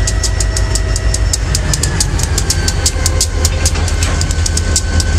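CSX diesel locomotive passing slowly at close range, its engine giving a steady low rumble. A fast, even ticking of about six clicks a second runs over it, with a few faint steady tones.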